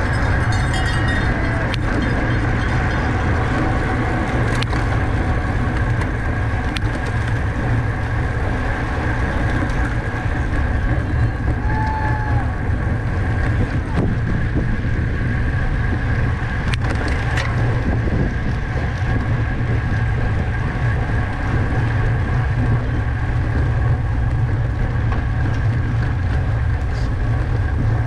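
Steady wind rushing over the microphone of a camera moving with a bicycle race, a loud, even low rumble with a hiss above it.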